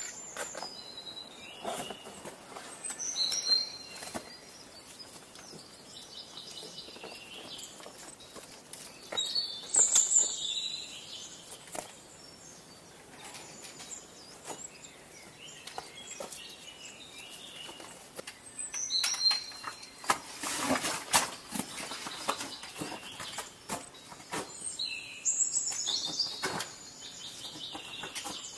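A songbird repeats a short, high song phrase several times, several seconds apart. Between the phrases come footsteps and trekking-pole clicks crunching over ice, dead leaves and rock.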